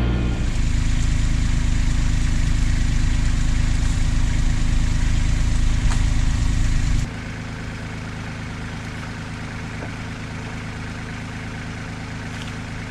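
Kubota LX2610 compact tractor's three-cylinder diesel engine running steadily. About seven seconds in it drops suddenly to a quieter, steady idle.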